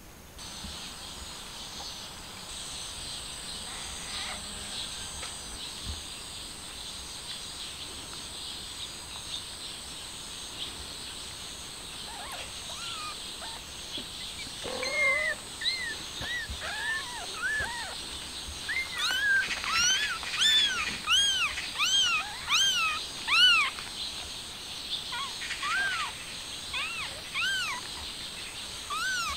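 Newborn kittens mewing: short, high, rising-and-falling cries that begin about halfway through and come faster and louder toward the end, over a steady high-pitched background hiss.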